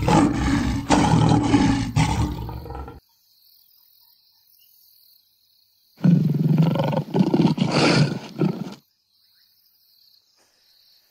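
Male lion roaring in two deep bouts about three seconds apart, the first lasting about three seconds and the second a little shorter.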